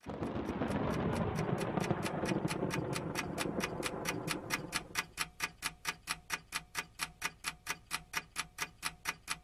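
Steady clock-like ticking, about four ticks a second, under a dense noisy wash that fades away about halfway through, leaving the ticks on their own until they stop abruptly.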